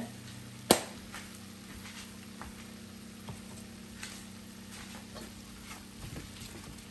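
Kitchen handling sounds at the pot: one sharp click a little under a second in, then faint scattered ticks over a steady low hum.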